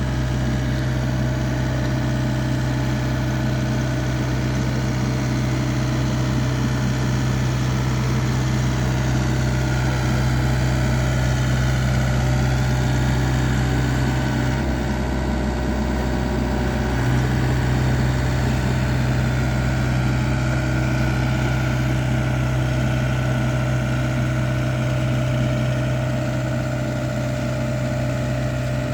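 TZCO TZ60 mini excavator's diesel engine running steadily while it works, with a brief shift in pitch about halfway through.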